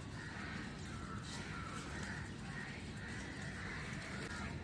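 Crows cawing, a string of harsh calls over a low background rumble.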